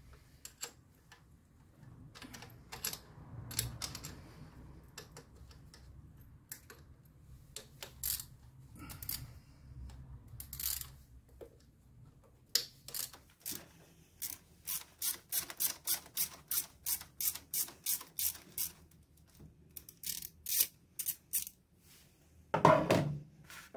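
Ratchet wrench clicking in a quick, even run of about three clicks a second as 10 mm fixings on the LPG injector rail are undone, with scattered metallic taps of tools on the engine. A louder knock comes near the end.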